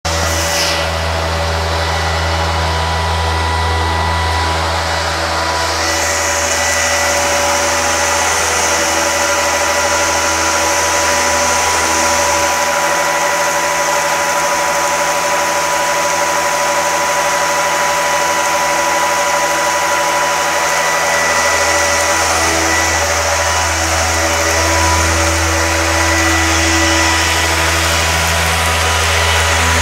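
A 5-axis CNC stone-milling machine running, its spindle whining on a few steady tones over a deep machine hum, with water coolant jets hissing on the tool as it mills marble. The deep hum drops away for several seconds in the middle, then returns.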